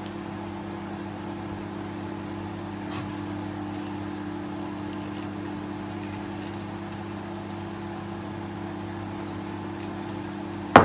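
A kitchen appliance running with a steady low hum, with a few faint light clicks over it.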